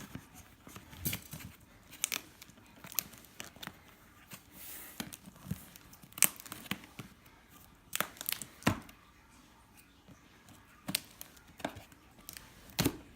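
Product packaging being cut with scissors and torn open: irregular sharp snaps and crinkling, with a short stretch of tearing about five seconds in.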